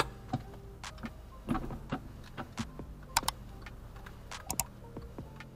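Irregular sharp clicks and light knocks inside a stationary car's cabin, over a low steady hum from the idling engine.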